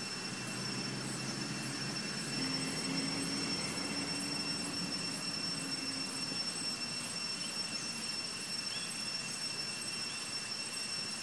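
Steady high-pitched insect drone holding a few fixed pitches over a background hiss, with a low engine hum that swells a couple of seconds in and fades out a little past halfway.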